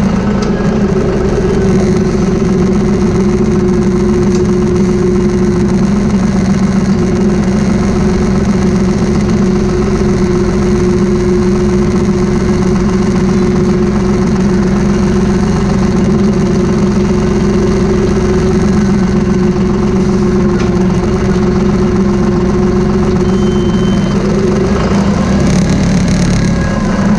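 Engine of the machine carrying a hanging sprayer wheel, running steadily at a constant pitch; near the end the pitch wavers up and down briefly.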